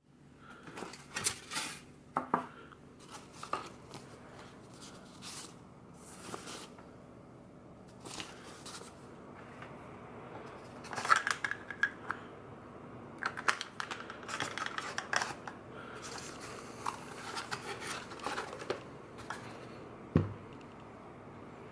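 Polystyrene foam packaging being handled: the foam lid scraping and rubbing as it is worked off the box, then a Super 8 movie camera being lifted out of its foam tray, with scattered clicks and one dull thump near the end.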